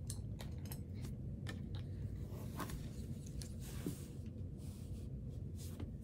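Faint scattered clicks and light rustles of hands handling denim fabric strips on a tabletop, over a low steady hum.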